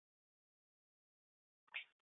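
Near silence, with one short faint sound near the end.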